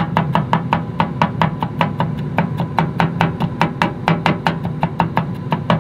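Knife chopping unpeeled fresh ginger on a cutting board in quick, even strokes, about six a second.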